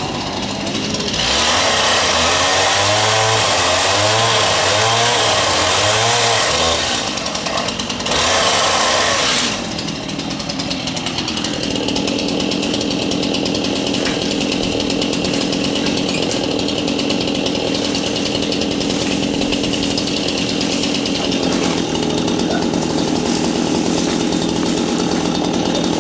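Gas chainsaw cutting through dead orange tree limbs, its engine pitch wavering under load, with a second short burst of cutting. About ten seconds in it settles to a steadier, lower running speed.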